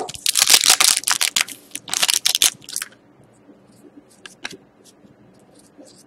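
A trading card pack wrapper being torn open and crinkled for about three seconds, followed by a few small clicks and ticks as the cards are handled.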